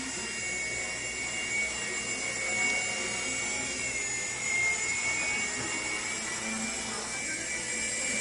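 Walkera CB100 micro RC helicopter in flight, its small electric motors and rotors making a steady high whine whose pitch wavers slightly as the throttle changes.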